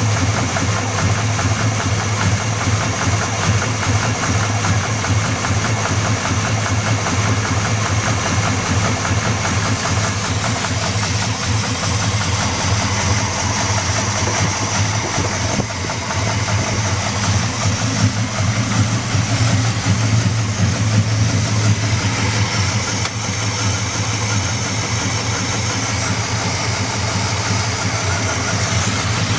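Buick 350 V8 engine idling steadily with a rapid, even knock running in time with the engine.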